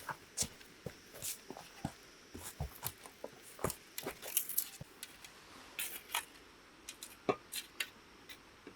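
Irregular sharp clicks and light taps, several a second at times, over faint background.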